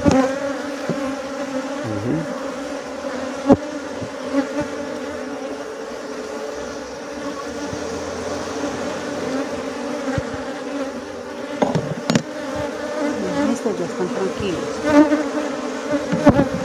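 Honeybees (Apis mellifera) humming steadily in masses over open hive frames; the bees are queenless and a little agitated. A few sharp knocks of wood or tool against the hive boxes cut through the hum.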